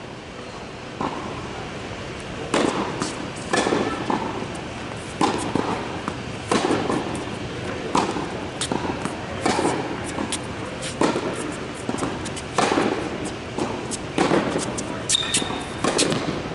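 Tennis balls struck by rackets and bouncing on an indoor hard court during a rally, sharp hits about every one to one and a half seconds, each echoing in the large hall.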